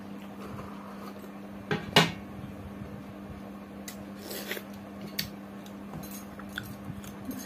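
A small steel bowl is set down in a metal plate with a sharp ringing clink about two seconds in. Lighter clinks of metal dishware follow, over a steady low hum.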